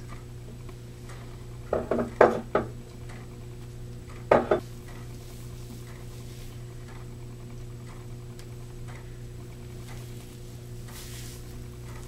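A few sharp clinks and knocks of a white ceramic bowl being handled and set down, a cluster about two seconds in and another about four and a half seconds in, over a steady low hum.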